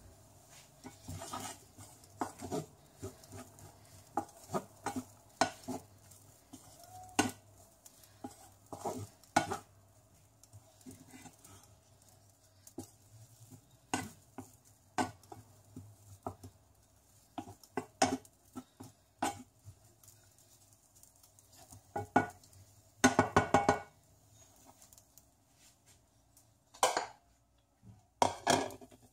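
Wooden spatula stirring and scraping fried rice in a non-stick frying pan, knocking against the pan in irregular clatters, with a quick run of knocks about two-thirds through and a few more near the end.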